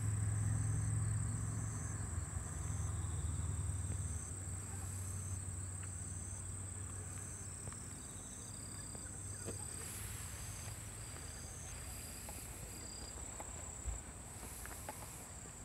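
Insects singing: a steady high drone with short chirps repeating at an even pace. A low hum is loudest for the first few seconds, then fades about four seconds in.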